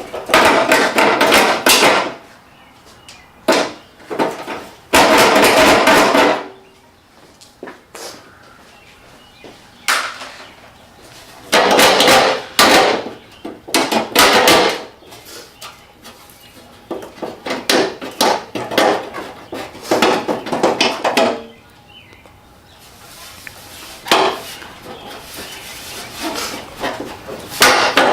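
Bursts of rapid knocking and rattling from hands and tools working hard plastic trim parts loose on a car, in several bouts separated by short pauses.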